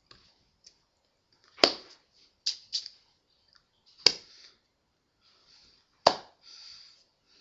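Sharp clicks or slaps from a person's hands, most likely during signing: three loud ones about two seconds apart, with two softer smacks in between and faint breathy hiss.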